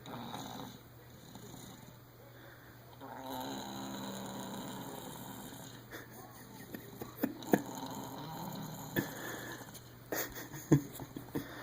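Baby snoring while sick with a bad cold: long, breathy, congested snores, broken in the second half by several short, sharp snorts or clicks that are the loudest sounds.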